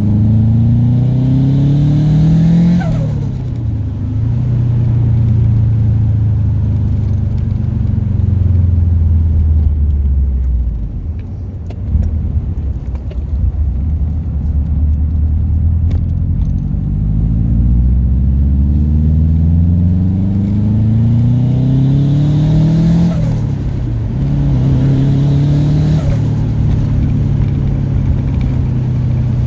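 Subaru Impreza GC8's turbocharged flat-four with a GT30 turbo pulling hard and rising in pitch, then lifting off about three seconds in with a falling turbo whine and a short rush of flutter noise. It runs steadily, pulls hard again from about 17 seconds, and flutters again on lift-off about 23 seconds in.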